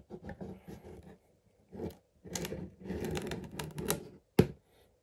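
Large cardboard toy box being opened by hand: scraping and rustling cardboard with scattered small clicks, and one sharp knock about four seconds in.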